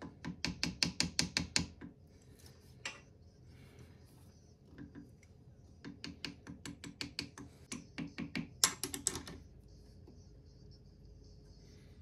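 Metal lathe chuck key being turned in a four-jaw chuck to tighten the jaws on a pen blank. It makes two runs of quick metallic clicks, about eight a second, one short just after the start and a longer one in the middle, with a single click between them.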